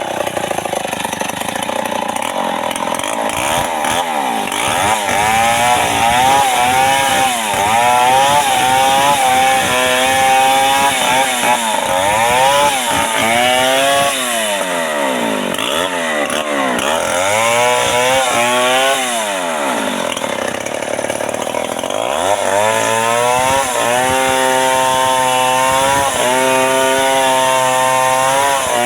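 Two-stroke chainsaw cutting into the trunk of a large amplas tree, the engine pitch repeatedly rising and sagging as the chain bites, then held at steady high revs near the end.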